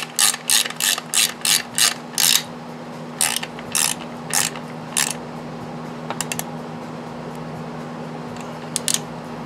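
Hand ratchet wrench clicking as a Loctited bolt is tightened by feel: quick clicks about four a second for a couple of seconds, then a few slower clicks, stopping about five seconds in, with a couple of faint clicks later.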